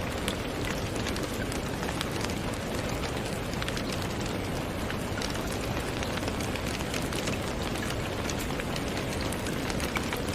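Steady rain falling, a dense even hiss flecked with many small drop ticks.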